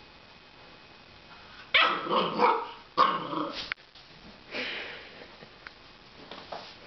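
Puppy barking and growling in play: two loud growly bursts about two and three seconds in, then a shorter, quieter one.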